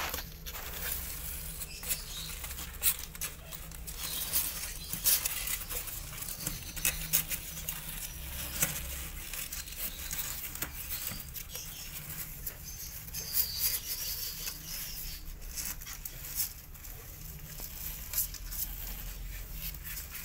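Kittens' claws scratching and pattering on the floor and sides of a cardboard box as they crawl about, a string of irregular light scrapes and taps.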